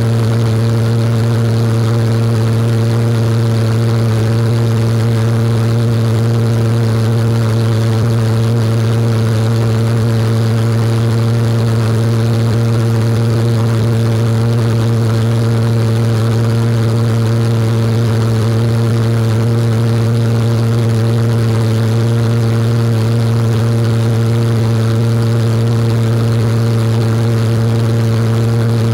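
Maddoxjets Cyclone 50 pulsejet engine running continuously at full power, a loud steady low buzz whose pitch does not change.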